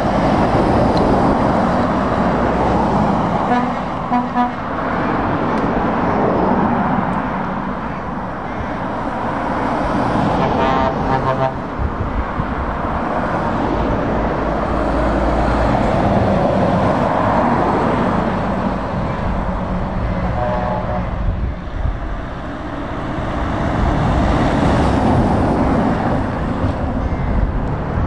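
Heavy lorries, among them a Volvo FH and a Scania S 580, driving past in turn, engine and tyre noise swelling and fading as each one passes. Short horn toots sound about four seconds in, around eleven seconds, and around twenty-one seconds.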